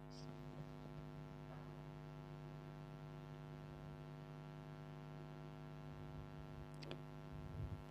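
Faint, steady electrical mains hum with many even overtones, with a couple of faint short clicks near the end.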